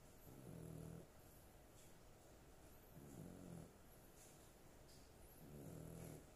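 A sleeping dog snoring faintly: three drawn-out, pitched snores, each about half a second to a second long, coming every two and a half to three seconds.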